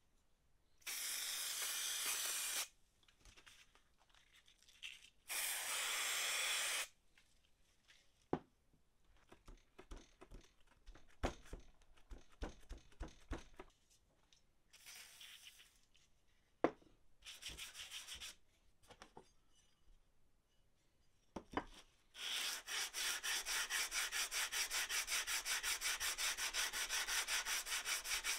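Steel plane iron being rubbed on an abrasive to flatten it by hand. There are two long scraping strokes near the start, then some knocks and clicks as it is handled, then fast, steady back-and-forth scrubbing from about 22 seconds in.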